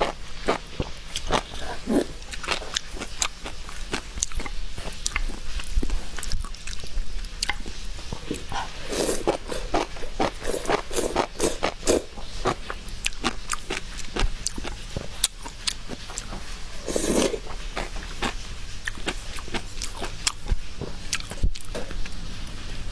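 Close-up mukbang eating: biting and chewing with many short, crisp crunches, and a few louder, lower mouth sounds about nine to twelve seconds in and again near seventeen seconds.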